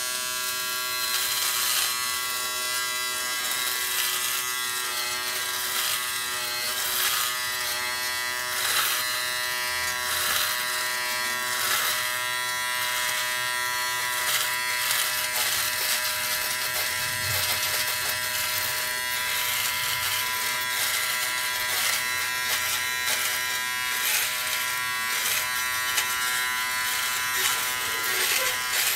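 Remington Wetech PF7580 foil shaver running with its stubble guard fitted, a steady electric buzz crossed by frequent short scratchy rasps as the head is moved over the stubble on the jaw and neck.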